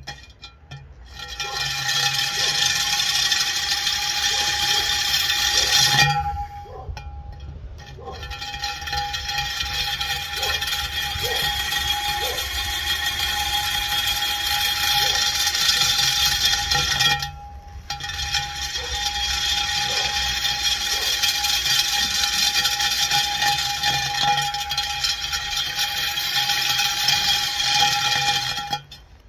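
Parkside PKBM 1800 A1 core drill (1800 W) running with its core bit pressed into a concrete slab, held by hand without a stand. It runs in three long stretches, easing off briefly about six seconds in and again just past halfway, and stops just before the end. Without a stand the bit struggles to hold its line and start its groove.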